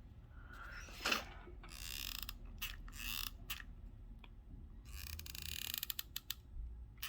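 Hot glue gun being reloaded with a new glue stick: creaking and ratcheting clicks from the gun's trigger feed mechanism, with scattered clicks and rustling handling noise.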